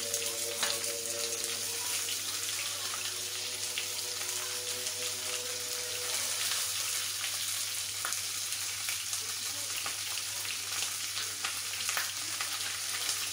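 Chicken pieces sizzling steadily in hot oil and butter in a frying pan, browning to a golden colour, with a few light clicks.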